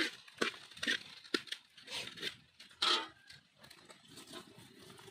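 A slotted metal ladle scraping and knocking against a metal pot while crumbled egg is scooped out, about seven short scrapes over the first three seconds, the one near three seconds longer than the rest. The last second or two is quieter.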